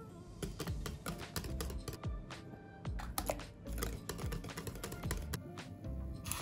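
Wire balloon whisk beating a thick cream cheese and cream filling in a glass bowl, its wires clicking rapidly and irregularly against the glass, over background music.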